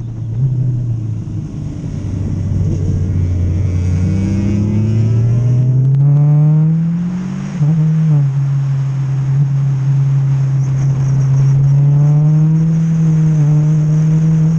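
Motorcycle engine heard on board under way. The revs sink low, then climb steadily to a peak about seven and a half seconds in. They drop abruptly with a short dip in loudness at a gear change, then hold steady and rise slightly near the end.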